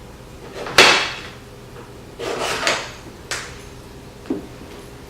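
Handling noise from fitting a vanity mirror's stand: a sharp knock about a second in, then a short scraping clatter and two lighter clicks as the stand and screws are moved into place.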